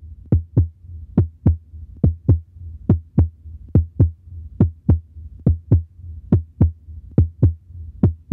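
Heartbeat sound effect: a steady lub-dub of paired low thumps, about seventy beats a minute, over a low hum.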